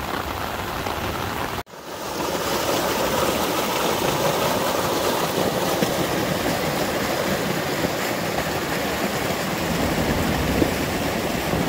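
Muddy flash-flood stream of rainwater rushing across a sandy beach and pouring into the sea, a steady churning of fast-flowing water. The sound drops out for an instant a little under two seconds in, then the rushing goes on.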